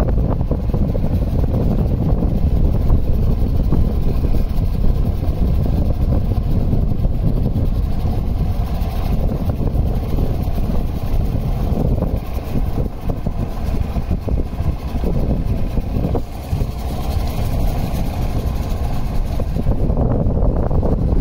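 Steady low rumble of a small boat moving along on the water.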